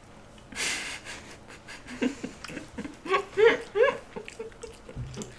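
Giggling and short bursts of laughter, a few quick rising-and-falling laughs about three seconds in, with a brief breathy sound near the start.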